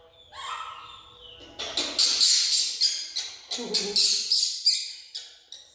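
Baby macaque screaming: a short cry near the start, then a rapid string of shrill shrieks, about four a second, from about a second and a half in, fading near the end.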